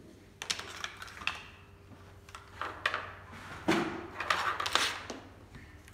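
Plastic play dough cutters and a toy rolling pin clattering as they are taken out of a wicker basket and set down on a plastic tray: scattered light clicks and clacks, busiest and loudest in the second half.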